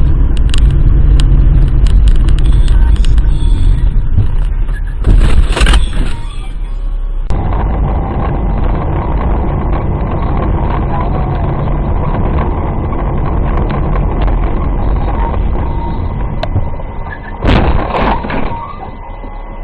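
Car driving, with steady engine and road noise. A loud, sudden noise comes about five seconds in and another near the end.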